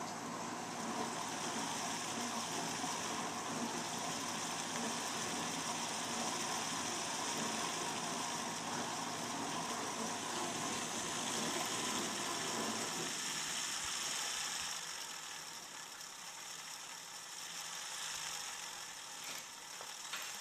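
ADDA computer fan with worn bearings running steadily, with a dishwasher running in the background. About two-thirds of the way through, the lower part of the sound drops away abruptly, leaving a higher hiss.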